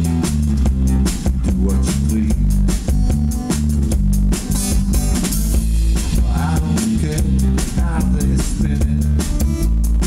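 Live blues band playing: a strummed acoustic guitar over a drum kit keeping a steady beat, with a heavy bass underneath.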